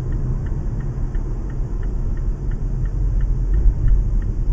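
Steady low rumble of a moving car's road and engine noise, picked up inside the cabin by a dashcam while driving at about 30 mph. A faint, regular ticking runs alongside, about three ticks a second.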